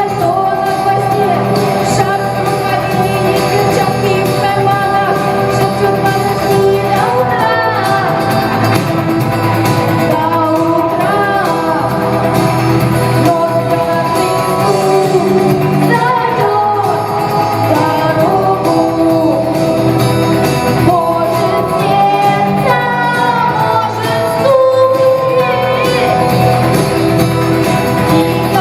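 A rock song with a lead voice singing over a band.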